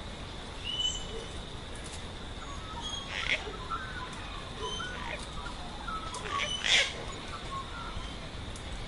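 Aviary birds, parrots among them, chirping and calling: a scatter of short high chirps, with two louder, harsher calls about three seconds in and near seven seconds.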